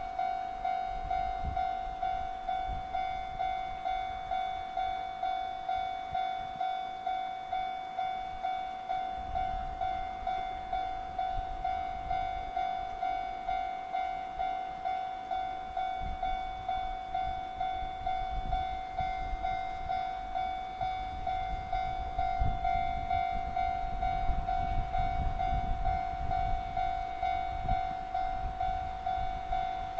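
Level-crossing warning bell ringing in an even, rapid repeating pattern, while a JR Freight electric locomotive hauling container wagons approaches, its low rumble growing over the second half.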